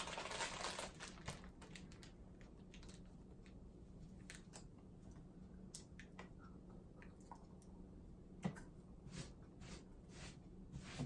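Quiet room with faint scattered clicks and small handling noises, a soft rustle in the first second and a low steady hum underneath.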